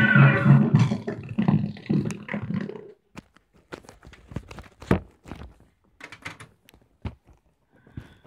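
The last notes of a 1978 live band recording, played through a laptop speaker, fade out over the first two or three seconds. Then scattered small clicks and knocks, with one louder thunk about five seconds in.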